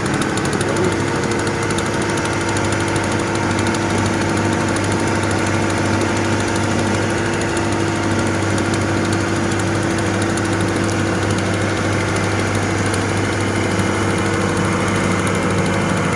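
Heavy diesel engine running steadily at an even pitch, with no clear digging or dumping impacts.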